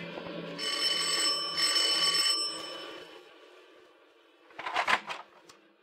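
Electric doorbell ringing in two rings of about a second each, the ring fading out over the next second. A short clatter follows about a second before the end.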